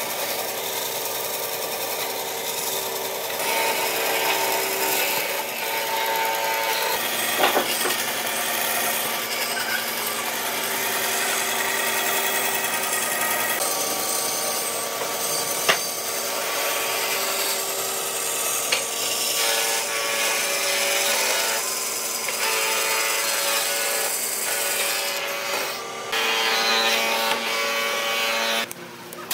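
Band saw running and cutting a curved line through a thick wooden block, the blade's steady cutting noise over the hum of the motor. Two sharp clicks along the way.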